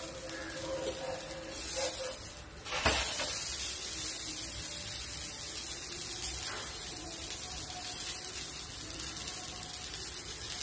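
Dosa sizzling on a hot iron pan. About three seconds in comes one sharp clack as the dosa is flipped with a steel spatula, and the sizzling then runs steady and a little louder.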